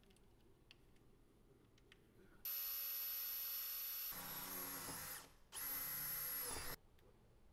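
Cordless drill run in two bursts at the wall: about three seconds, then after a short pause about one more second. The motor's whine changes partway through the first burst as it takes up load.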